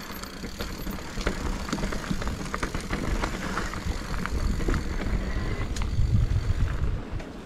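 Mountain bike descending a rough, rocky trail: tyres rolling over stones, with scattered sharp rattles and clicks from the bike. A low rumble builds and is loudest past the middle.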